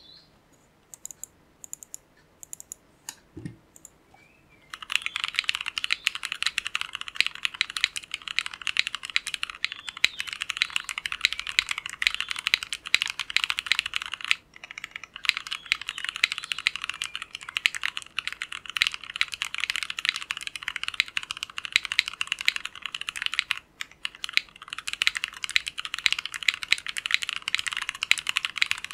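Continuous fast typing on an Ozma60 aluminium top-mount custom mechanical keyboard fitted with Tecsee Jadeite switches, with three layers of masking tape on the PCB and o-rings at the plate mounting; the keystrokes sound poppy. A few isolated keystrokes come first, then steady typing from about five seconds in, with two short pauses.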